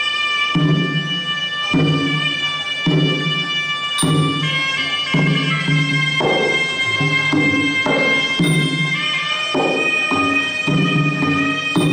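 Traditional Khmer boxing music for the pre-fight ritual: a sralai reed oboe plays long, high held notes with a nasal, bagpipe-like tone over a drum beat of about one stroke a second.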